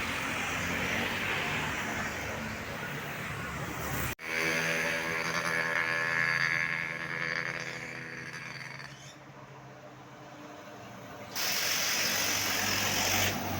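Tour buses on the road, with a steady pitched tone full of overtones for about five seconds from about 4 seconds in. The sound cuts off abruptly just before the tone, as at an edit.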